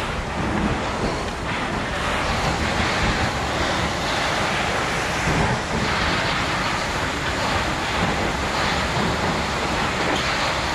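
Fire hose nozzle sending out a high-pressure water jet: a steady, unbroken rushing noise.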